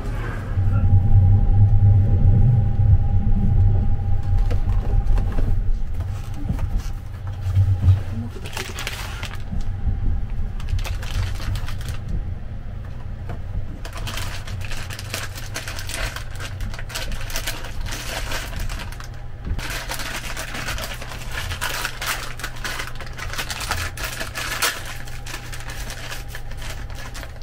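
Paper wrapping and string of a boxed lunch being handled and torn open, a dense crinkling and rustling that is heaviest in the second half. A low steady train rumble runs underneath.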